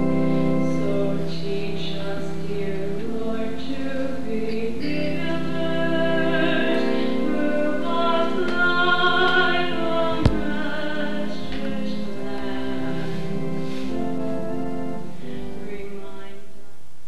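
A solo singer with vibrato, singing long held notes over sustained instrumental accompaniment. There is a single sharp click about ten seconds in.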